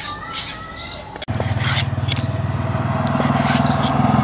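Small birds chirping, then about a second in a motorcycle engine cuts in and runs steadily, the loudest sound, with a few sharp taps of a knife on a wooden chopping block as beef liver is sliced.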